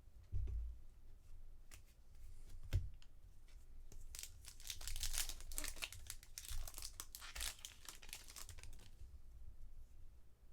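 Trading-card pack wrapper being torn open and crinkled, a dense run of crackling about four seconds in that dies away near the end, after a couple of light knocks of cards and packs being handled.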